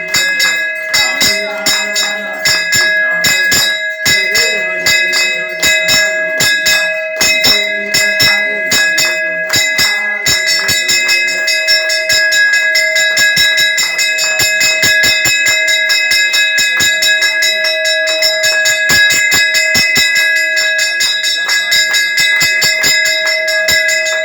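Temple bells rung in rapid, continuous strokes, about three strikes a second, their tones ringing on between strokes. The ringing grows busier about ten seconds in.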